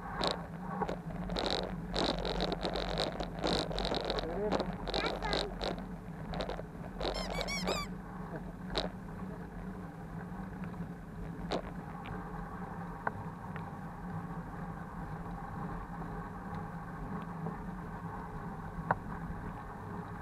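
Child's bicycle rolling along a paved path. A run of irregular squeaks and creaks comes from the bike over the first six seconds, then a brief high squeal about seven seconds in, after which it settles into a steadier rolling hum with the odd click.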